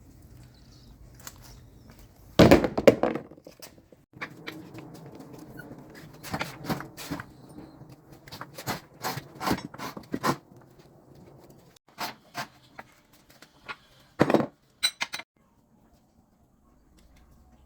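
Irregular knocks and clanks of hard objects being handled. The loudest are about two and a half seconds in and again near fourteen seconds, with lighter clicks between.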